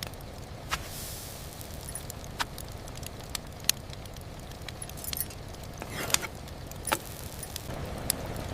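Rainy-night ambience: a steady low wash of noise with irregular sharp ticks and clicks scattered through it, a few louder ones about four and six to seven seconds in.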